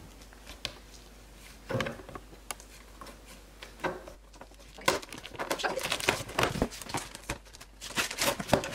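A knife slicing along the packing tape of a cardboard shipping box, with a few scattered scrapes and taps. From about five seconds in comes a dense run of crackling as the cardboard flaps are pulled apart and the tape tears.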